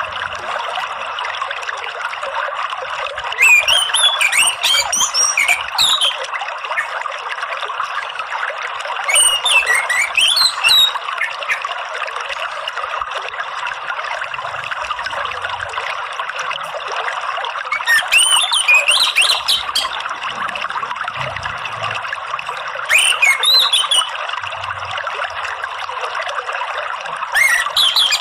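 Running water trickling steadily, with an orange-headed thrush singing five short, quick chirping phrases at uneven gaps.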